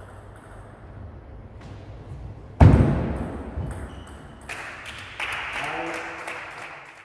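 Table tennis ball clicking off rackets and table during a rally, with one loud thud about two and a half seconds in and a voice near the end.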